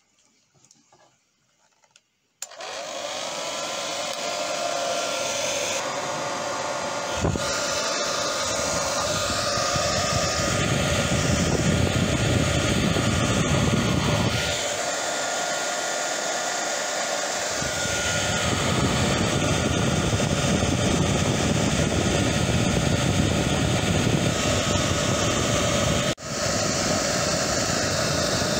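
Electric hot-air blower, like a hair dryer, switching on suddenly about two seconds in and then running steadily with a whine. Its low rumble drops away for about three seconds midway, and it cuts out for a moment near the end.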